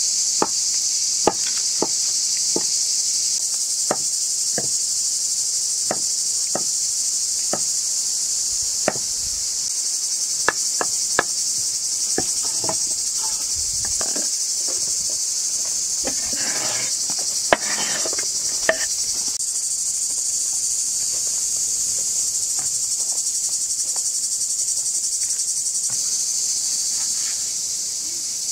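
Steady high chirring of insects, with scattered sharp knocks and taps of a knife on a wooden cutting board.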